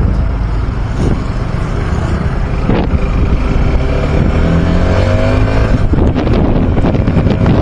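Motorcycle engine running on the move, its pitch rising as it accelerates a few seconds in, with wind rushing over the microphone that grows louder near the end.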